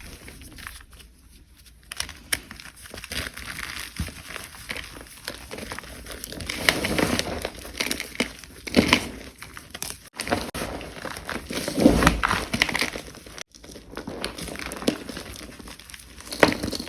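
Close-up crushing and crinkling of a brittle material: irregular crunches and crackles, louder around 7, 9 and 12 seconds in.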